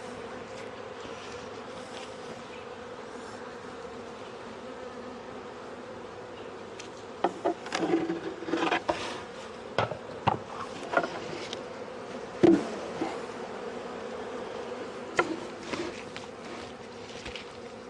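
Honeybees buzzing steadily around an open hive, with a run of sharp knocks and clunks of hive frames and wooden boxes being handled from about seven seconds in, the loudest a little past halfway.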